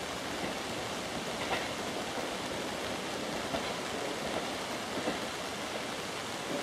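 Steady rain falling, an even hiss with no distinct events.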